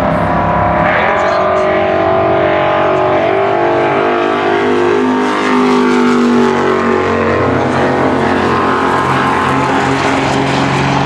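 Drag-race engines of a diesel pickup truck and a Mustang running loud, several engine tones held steady and sliding slowly in pitch.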